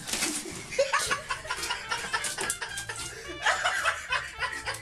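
People laughing in short bursts of chuckles and snickers.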